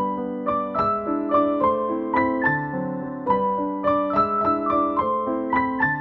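Background piano music: a gentle melody of notes struck about three a second over held lower notes.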